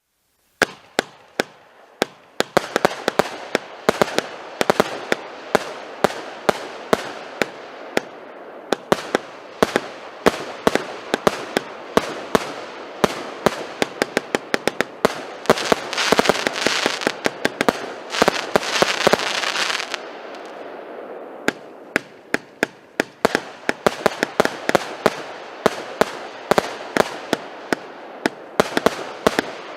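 Rumba OTS 5050 firework battery (Orion brand) firing: a rapid string of sharp pops and bangs over a continuous crackling hiss, starting about half a second in. The shots come thickest and loudest in a dense stretch about halfway through, then carry on at a slightly lighter pace.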